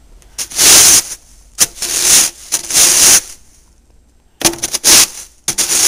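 Snow shovel scraping and pushing through snow on a wooden deck, about six separate strokes of rough scraping noise, each around half a second long, with short pauses between them.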